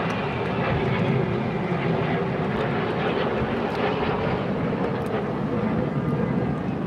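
Jet engine noise from the Red Arrows' BAE Hawk T1 jets flying overhead during the display, a steady rushing sound.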